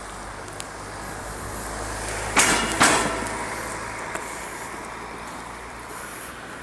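A motor vehicle engine running close by, growing louder and then fading, with two sharp loud noises about half a second apart near the middle.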